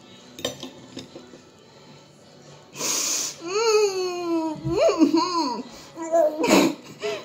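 A person laughing hard: a high, wavering laugh that breaks out about three seconds in with a sharp gasp, and flares again near the end. A couple of faint clicks come before it.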